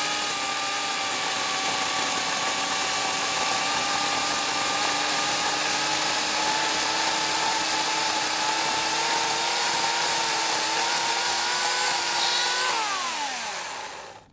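Portland 14-inch electric chainsaw's 9-amp motor and chain running at a steady high whine. Near the end it winds down, falling in pitch, and stops.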